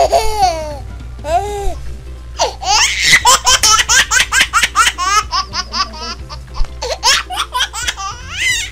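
High-pitched laughter in rapid repeated bursts over background music, with a steady low hum beneath.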